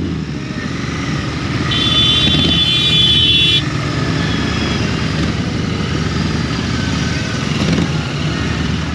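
Royal Enfield Interceptor 650's parallel-twin engine running steadily under way. About two seconds in, a vehicle horn sounds for roughly two seconds.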